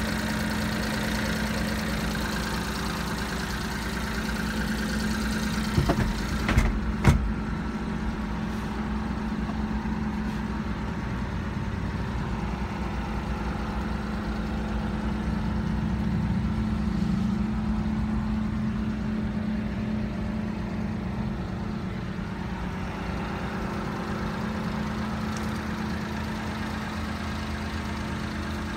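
Mitsubishi Minicab kei truck's engine idling steadily, with a few sharp knocks about six to seven seconds in.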